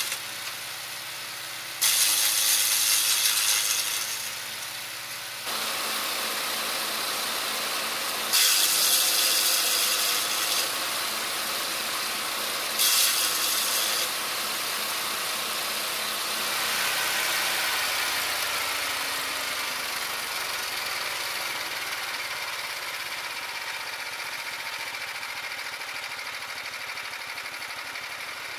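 Petrol garden shredder driven by a Honda GX390 single-cylinder four-stroke engine running at speed, with three loud crunching bursts as its rotor chews up green branches. Later the engine speed falls with a dropping whine and it settles to a steadier, quieter run.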